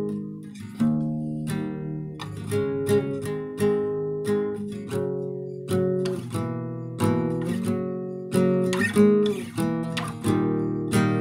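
Instrumental passage of a song: strummed acoustic guitar chords, struck again roughly every half to three-quarters of a second, with no singing.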